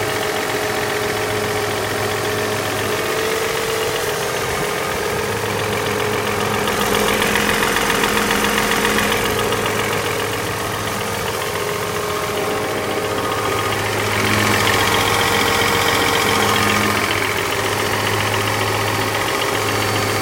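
Mercedes-Benz M112 V6 engine idling after a cold start, with a knock that appeared after its valve stem seals and timing chain were replaced. It runs a little louder twice for a few seconds, about seven and fourteen seconds in.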